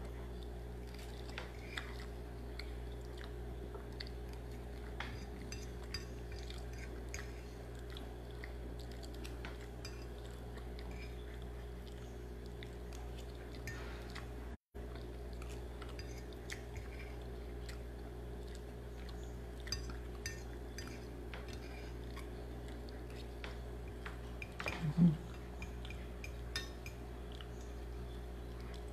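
Someone eating instant noodles with sardines: quiet chewing and small clicks of cutlery against a plate, scattered through, over a steady low hum. About 25 seconds in there is one brief, louder sound.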